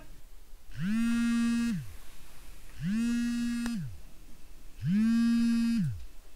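Mobile phone on vibrate buzzing three times for an incoming call, each buzz about a second long and about two seconds apart, its pitch sliding up as the motor starts and down as it stops.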